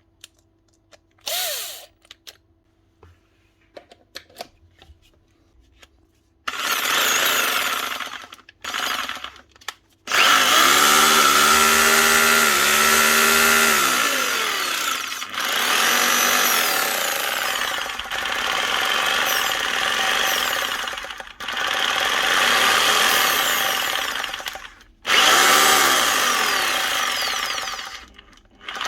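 Parkside electric drill motor running in a string of trigger-pulled bursts, its speed sagging and picking up again and cutting out briefly several times: the trigger is not working right. The first few seconds hold only light clicks and one short blip.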